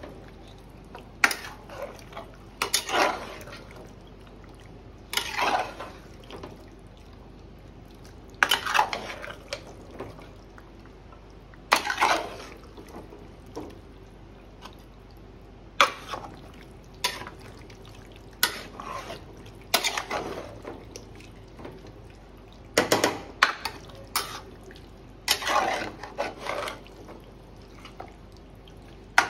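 Kitchen work sounds: a utensil scraping and knocking in a cooking pot, mixed with wet, sloshing liquid sounds, in irregular strokes every one to three seconds.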